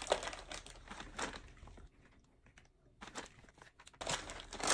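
Plastic snack bags crinkling and rustling as they are handled, in short crackly bursts, with a brief near-silent gap in the middle.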